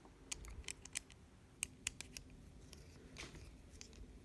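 Faint, sharp metallic clicks and taps in small clusters: the retaining screw being set into an American Lock 1100 padlock body, and metal parts knocking against the lock.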